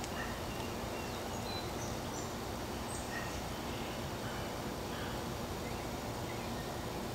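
Steady outdoor background hiss with a few faint, short bird chirps now and then.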